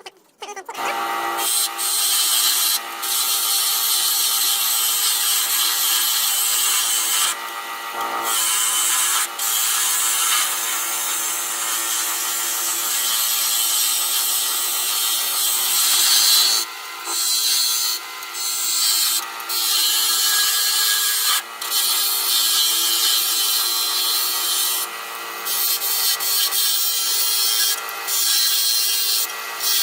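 Wood lathe running while a chisel cuts a scrap-wood blank down to round: a steady hiss of cutting over the motor's steady hum, with short breaks where the tool comes off the wood.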